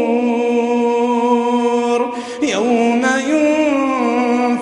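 A man's voice reciting the Quran in melodic tajweed chant, holding a long drawn-out note, with a short break and a turn of the melody about two seconds in before another long held note.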